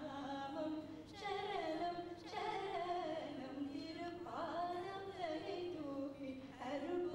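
Hindu devotional singing: a voice sustaining long, wavering notes that glide up and down between held pitches.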